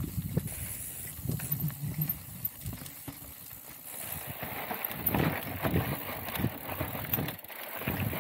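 Mountain bike riding over a rough trail: tyre rumble with irregular knocks and rattles from the bike, which become busier about halfway through.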